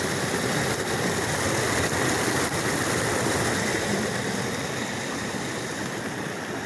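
Muddy rainwater runoff rushing and splashing over a small drop in a grassy ditch. It makes a steady rushing noise that gets a little quieter near the end.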